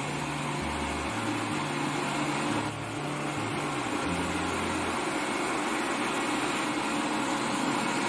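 ILIFE A11 robot vacuum running steadily as it cleans, a constant even whir of its suction fan and brushes. Low bass notes of background music change pitch underneath.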